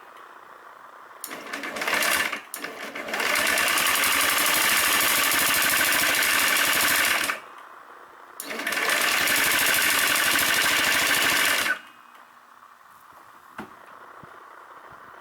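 Honda Zoomer scooter's electric starter cranking the engine in three attempts, a brief one, then one of about four seconds, then one of about three seconds, each with a fast, even clicking clatter from the engine, and the engine does not catch. A no-start with an abnormal clicking so bad the owner wonders whether there is any engine oil in it.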